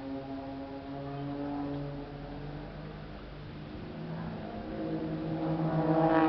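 Aerobatic propeller plane's engine droning overhead, a steady hum of several stacked tones that shifts slightly in pitch and grows louder over the last couple of seconds.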